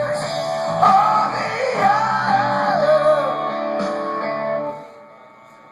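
A live rock band playing electric guitars with a singing voice over them. The music stops abruptly about five seconds in.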